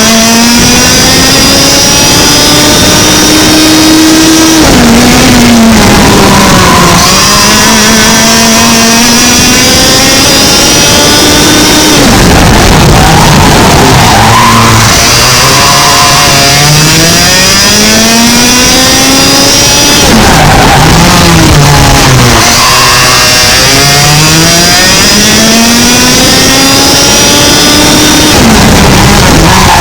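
100cc two-stroke kart engine at full throttle on a lap. Its pitch climbs steadily along each straight and falls sharply about four times as it lifts for corners, lowest around the middle, then picks up again.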